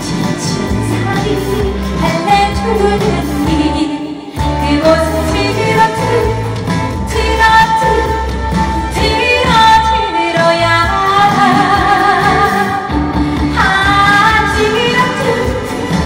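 A woman sings a Korean trot song into a handheld microphone over backing music with a steady low beat. She pauses briefly about four seconds in, then holds long wavering notes in the second half.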